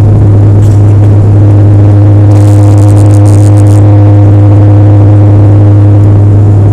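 Airliner engines at takeoff power, heard from inside the cabin during the takeoff roll: a loud, steady deep drone holding one pitch. A brief hiss comes in about two and a half seconds in.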